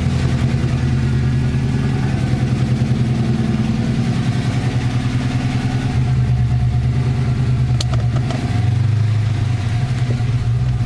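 Holden R8 Clubsport's LS1 5.7-litre V8, fitted with a new Comp Cams camshaft, running steadily at low revs with an even pulsing exhaust note.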